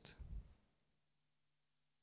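Near silence: room tone with a faint steady low hum, after the tail end of a man's speech fades out in the first half second.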